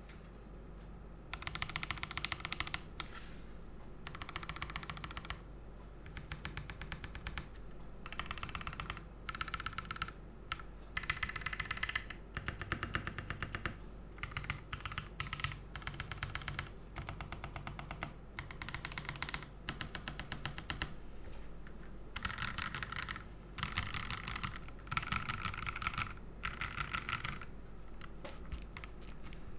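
Typing on a GMMK Pro mechanical keyboard with lubed frankenswitches (Konpeitou housings, Kailh Burgundy stems), PBT keycaps, an aluminium plate and a thin PE foam dampener: fast keystroke clacks in bursts of a second or two, with short pauses between.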